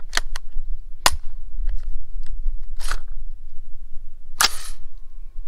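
ATI Omni AR-15 rifle making a series of sharp metallic clicks and snaps: a few quick clicks in the first second, a short scrape about three seconds in, and a louder snap with a brief rattle about four and a half seconds in, over a steady low hum.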